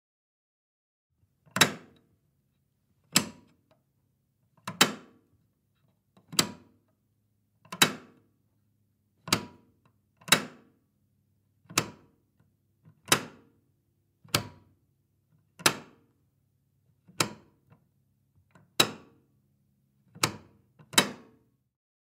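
A heavy switch flipped again and again: about fifteen sharp clicks, roughly one every second and a half, with the last two coming close together.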